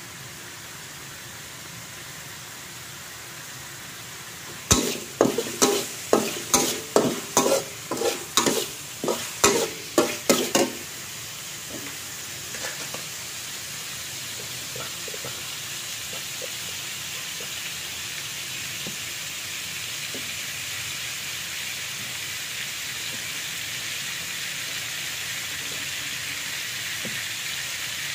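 A metal spatula scrapes and knocks against a metal wok in a run of about a dozen strokes, roughly two a second, for some six seconds. Under and after it, chopped meat sizzles as it fries, the sizzle growing gradually louder.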